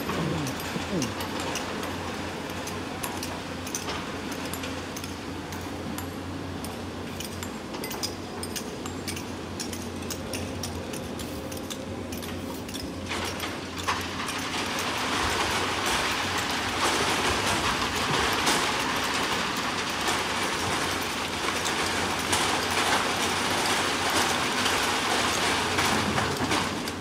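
Hydraulic excavators' diesel engines running steadily, with clattering clicks of rock and sand being loaded into steel dump-truck beds. The rushing and clatter grow markedly louder about halfway through.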